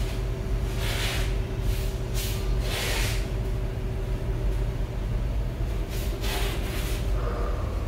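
Paint spray gun hissing in several short bursts as paint is sprayed onto a vehicle roof, over the steady hum of a spray booth's ventilation.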